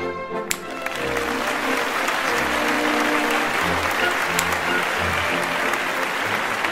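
Upbeat background music, with a crowd applause sound effect that comes in about half a second in and carries on steadily over it.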